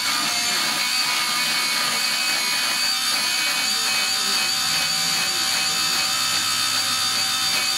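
Electric pencil sharpener running steadily as a colored pencil is held pushed into it, the motor giving a steady whine over the grinding of the blades cutting the pencil's wood and lead.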